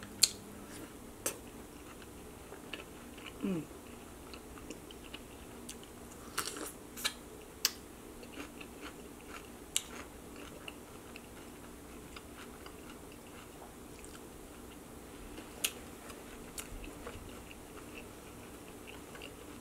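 Close-miked chewing and wet mouth smacks of a person eating chicken wings, with scattered sharp clicks now and then.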